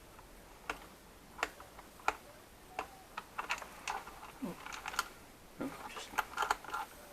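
Irregular sharp clicks and light taps of a small Torx driver working on the screws in a plastic steering-wheel switch-pack housing, coming more thickly in the second half.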